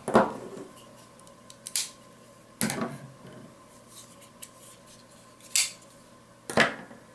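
Benchmade folding knives being handled, their blades opened and closed with sharp metallic clicks of the locks, about five clicks spread over several seconds.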